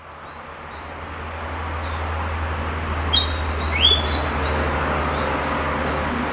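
Male narcissus flycatcher singing: a short phrase of clear whistled notes, some rising, about three seconds in, among fainter high notes. A steady low hum runs underneath.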